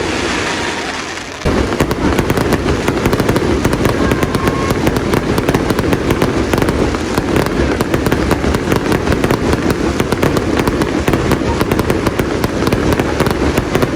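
Fireworks going off in a dense, continuous barrage of crackling pops, briefly thinning about a second in before resuming at full strength.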